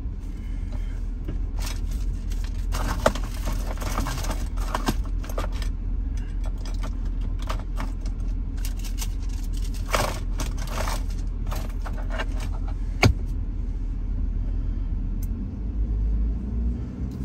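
Pickup truck cab while driving: a steady low rumble of engine and road, with scattered rattles and clicks throughout and a sharper click about thirteen seconds in.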